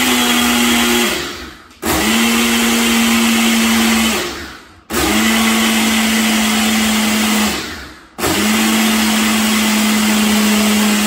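Nutri Ninja personal blender's motor running in pressed bursts of about three seconds, blending a smoothie with frozen spinach. It is winding down about a second in, then is pressed three more times, each time spinning up with a quick rising whine, running steadily and loud, then winding down again.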